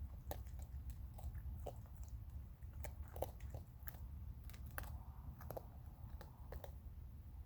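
Raccoons chewing and crunching hard food, with irregular crisp crunches every fraction of a second over a steady low hum.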